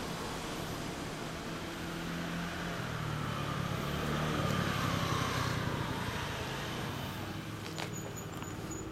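Kawasaki ZRX400 II's inline-four engine idling steadily through a BEET aftermarket exhaust. A passing vehicle swells up around the middle with a falling whine, and a couple of light clicks come near the end.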